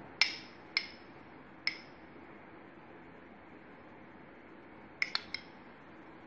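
Steel spoon clinking against a glass bowl and a plate while scooping out syrupy candied fruit pieces: three separate clinks in the first two seconds, then three quick clinks about five seconds in.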